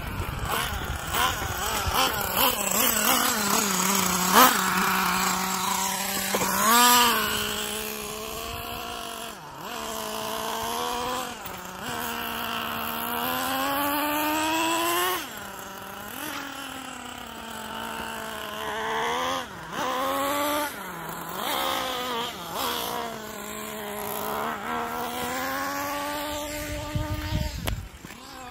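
Small nitro glow engine of a 1/8-scale RC truck revving up and down as the truck drives, its whine rising and falling again and again, with a brief sharp rev about seven seconds in.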